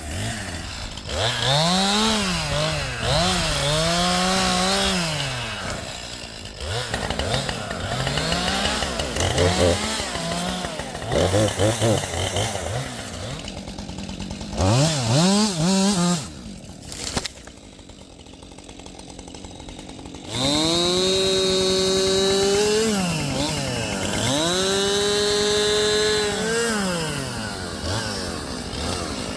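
Two-stroke chainsaw revving up and down again and again while cutting a path through trees and brush. It goes quieter for a few seconds about two-thirds through, then runs at full throttle through two long cuts near the end.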